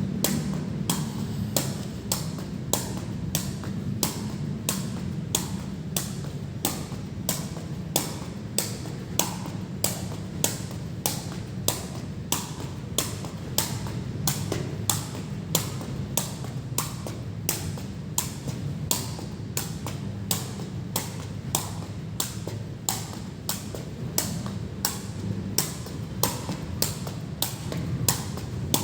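Sharp, even taps about twice a second, over a steady low hum.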